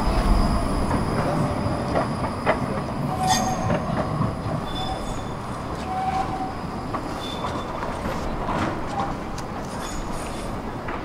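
A red low-floor tram rolling away on street rails, loudest as it passes at first. As it takes the curved track through the junction, its wheels give several short squeals.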